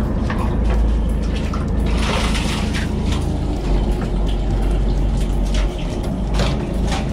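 Water splashing and sloshing over the steady low rumble of a fishing boat's engine, with the splashing heaviest about two seconds in.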